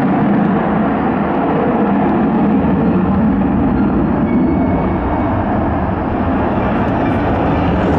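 Sukhoi Su-35 fighter's twin turbofan engines running loudly and steadily as the jet flies its display, a continuous jet roar.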